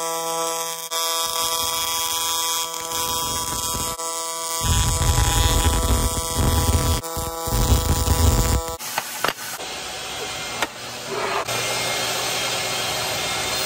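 AC TIG welding arc on aluminum from a Miller Dynasty 280 welder, buzzing steadily as a stack of even tones. It turns louder and rougher about four and a half seconds in and cuts out near nine seconds, leaving a steady hiss.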